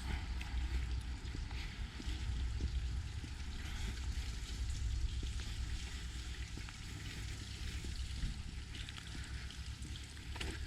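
Wind buffeting the microphone in a low, uneven rumble, over a steady rushing outdoor noise.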